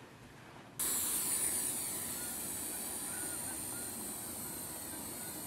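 Quiet room tone, then about a second in a sudden cut to the steady high whir of a Blade mQX quadcopter's four small electric motors and propellers in flight. The whir fades slowly.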